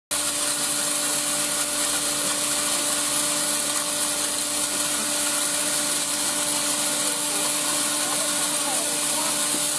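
Small electric grain mill running steadily, grinding dried corn kernels into meal: a constant motor hum under an even grinding hiss. A small child's voice is faintly heard near the end.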